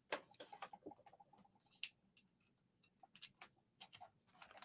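Faint, scattered clicks and small taps from hands handling a light-up display box and its power wire.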